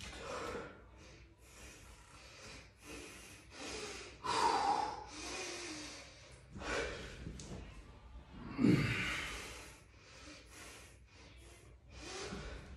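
A lifter breathing hard through a set of heavy barbell back squats: sharp inhales and forceful exhales, one after another. The breaths are loudest about four seconds in, and one near nine seconds in carries the voice.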